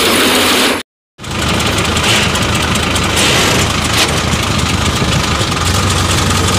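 Sonalika 750 III tractor's diesel engine and its mounted mini combine harvester running together while harvesting: a loud, steady mechanical din. The sound drops out completely for a moment about a second in.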